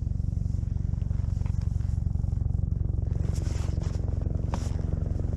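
Rescue helicopter's rotor beating in a fast, steady pulse over a low engine hum.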